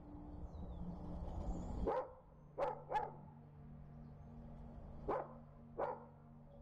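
A dog barking: three short barks about two seconds in, then two more near the end, over a steady low hum.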